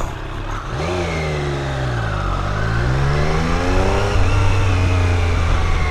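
Triumph Street Triple R's three-cylinder engine pulling away and accelerating, its pitch rising and falling as it changes gear, with wind noise on the helmet camera.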